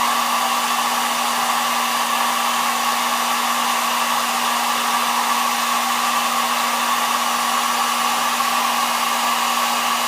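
Hot-air blower running steadily: a constant rush of air with a steady hum, heating the phone's screen so the broken glass can be separated from the digitizer.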